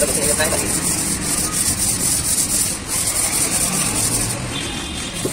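Sandpaper rubbing back and forth over the primed steel fuel tank of a Bajaj Discover motorcycle in repeated hand strokes, using 220-grit wet-and-dry paper. This is the smoothing of rough primer and putty before the colour coat.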